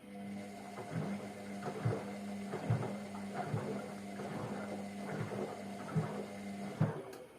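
Hotpoint Ariston washing machine turning its drum in the wash: a steady motor hum with irregular thuds and swishes of wet laundry tumbling. It stops shortly before the end.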